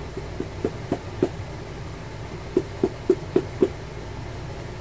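Leather battery case knocked against the edge of a wooden block to work the battery cell loose: a first run of five uneven light knocks, then after a pause a run of five evenly spaced knocks at about four a second.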